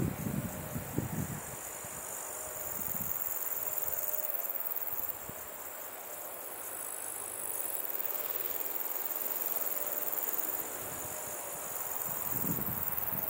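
Insects chirring steadily in grass, a continuous high-pitched sound. Wind buffets the microphone with low rumbling gusts at the start and again near the end.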